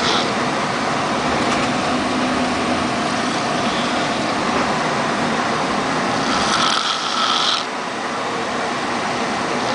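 A man snoring over the steady drone of a moving vehicle, the loudest snore lasting about a second, about six and a half seconds in.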